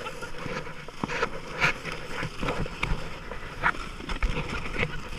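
Irregular crunches and scrapes in icy, packed snow over a steady hiss.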